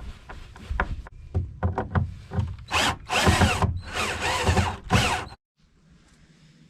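A power drill run in several short bursts, its pitch rising and falling as it speeds up and slows down, preceded by small clicks and knocks of handling.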